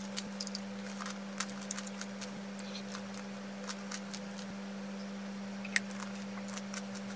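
Tanghulu's hard sugar shell being crunched while chewing: scattered faint crackles and clicks, with one sharper click about six seconds in, over a steady low hum.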